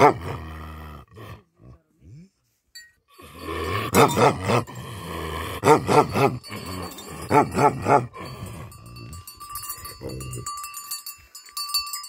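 Large black livestock guardian dog barking with its head raised: deep barks in quick clusters of two or three, stopping about eight seconds in.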